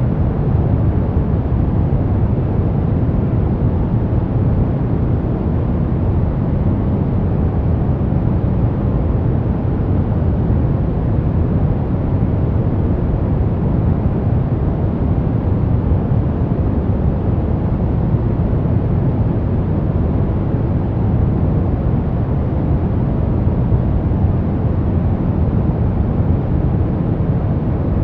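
Steady brown noise: an even, deep rumbling hiss weighted toward the low end, with no changes or events.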